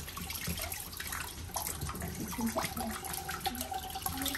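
Kitchen tap water running over a soaked sea cucumber as it is rubbed clean by hand, splashing into a bowl of water in the sink.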